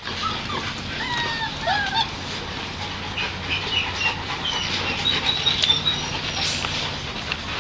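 American Pit Bull Terrier puppies whimpering and squealing in many short, high cries that slide in pitch, over a low steady hum.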